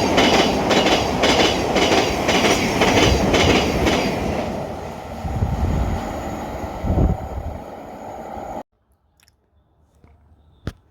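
A passing train, its wheels clacking over rail joints about twice a second, then fading into a lower rumble. The sound cuts off abruptly about eight and a half seconds in, leaving near quiet with a single click near the end.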